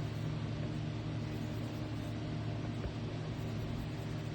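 Steady low hum with an even hiss of background noise, and a faint single tap about three seconds in.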